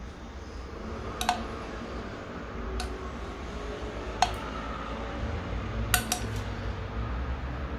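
Metal cutlery clinking against a dish: about six light, separate strikes, three of them close together near the end, over a low steady room rumble.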